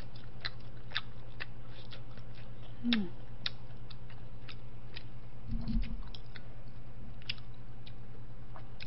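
Close-miked chewing: scattered small wet clicks and mouth sounds over a steady low hum. A brief falling murmur of voice comes about three seconds in, and a low thump a little after five seconds.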